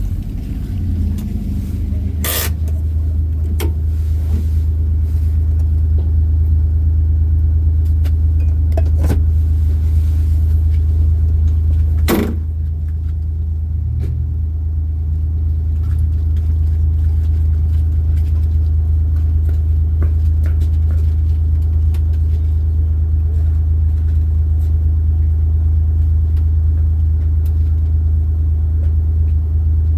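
Car running with a steady low rumble, with two sharp clicks, one about two seconds in and one about twelve seconds in.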